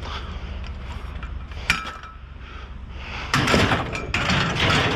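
Hand cutters snapping through a piece of scrap metal, one sharp click with a brief ringing about a second and a half in. Then a couple of seconds of scraping and rustling as the scrap is handled.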